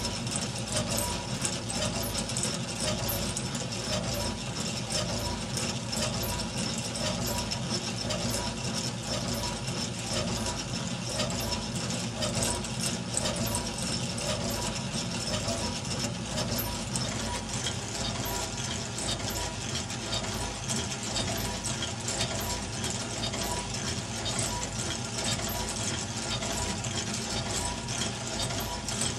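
Meccano model of a twin-cylinder steam engine running: a steady mechanical whirr with a regular clatter of its metal parts, gears and linkages.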